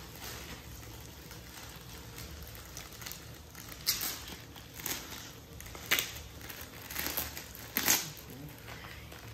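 Clear plastic packaging crinkling as hands open and handle the bag, quiet at first, then a series of about six sharp rustles from about four seconds in, over a low steady hum.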